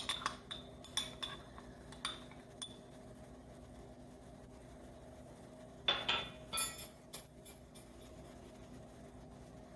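Metal measuring spoons clinking and tapping against a pot as ground spices are spooned into warm oil. There is a short scraping rustle about six seconds in, over a faint steady hum.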